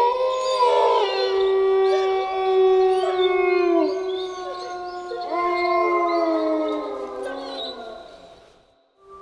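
Wolves howling in chorus: several long, overlapping howls at different pitches, some sliding down at their ends. A fresh howl rises in about halfway through, and the chorus fades out near the end.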